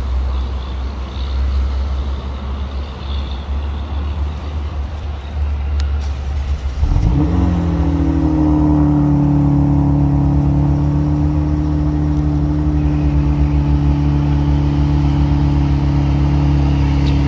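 Kia Stinger GT's twin-turbo 3.3-litre V6 running through aftermarket ARK downpipes, heard at the exhaust tips. It begins as a low rumble; about seven seconds in, the engine note jumps up sharply and then holds at a steady, higher pitch.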